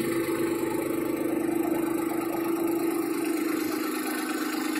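Kubota Aste A-19 compact diesel tractor engine idling steadily.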